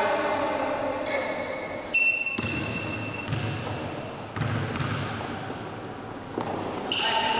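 Basketball bouncing and thudding on a gym court, a few separate thumps, with a steady high tone lasting about a second, two seconds in, and voices shouting near the end.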